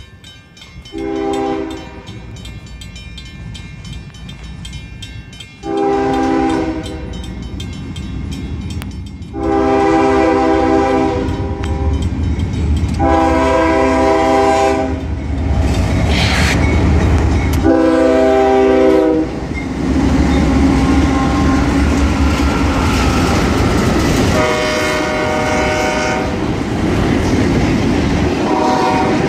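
Freight train's GE ES40DC lead locomotive blowing its horn in a series of blasts, several of them long, for a grade crossing. The diesel locomotives' deep rumble builds up and passes partway through, then freight cars roll by with a clickety-clack of wheels on the rails.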